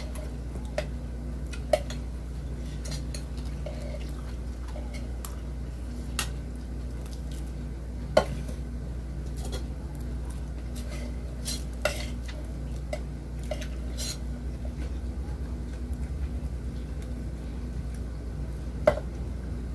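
Eating at a table: scattered sharp clicks and light clinks of plates and utensils, the loudest about 2, 8, 12 and 19 seconds in, over a steady low hum.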